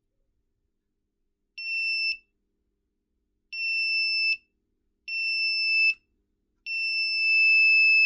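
Small electronic buzzer of a reed-switch intruder alarm giving four steady high beeps, the last one longest and loudest, as the magnet is moved against the reed switch to trigger it.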